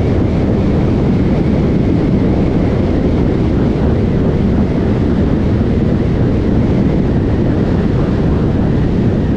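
Loud, steady wind rushing over the microphone of a camera on a moving car, with no engine note standing out above it.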